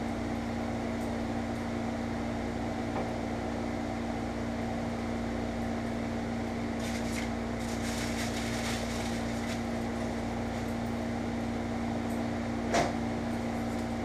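Steady mechanical hum of a kitchen appliance motor, with light clinks and rattles about halfway through and a single knock near the end.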